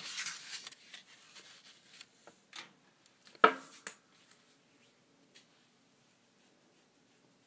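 A paper instruction booklet rustling and sliding under a hand on a cloth, with a few light clicks, then a single sharp knock with a short ring about three and a half seconds in.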